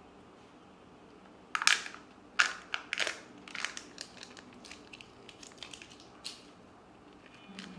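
Crackling and crinkling of a Kinder Joy egg's wrapper as it is torn open and handled, in a burst of sharp crackles starting about a second and a half in and tailing off over the next few seconds.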